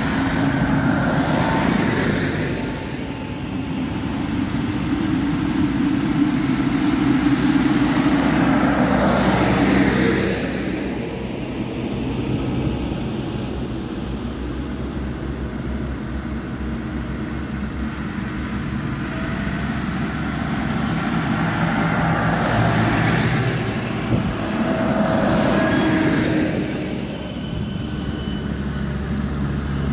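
Diesel farm tractors driving past one after another on a tarmac road, each engine growing louder as it approaches and fading as it goes away, with tyre noise. There is one pass just after the start, another about ten seconds in, and two close together near the end.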